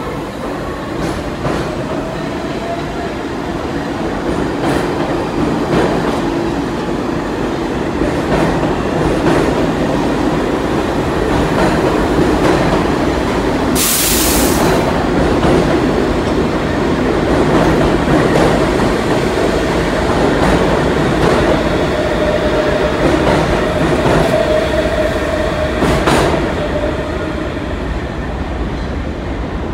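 Pullman Standard R46 subway train departing an underground station, its motors whining up in pitch as it pulls away and its wheels clacking over rail joints. A brief loud hiss comes about halfway through.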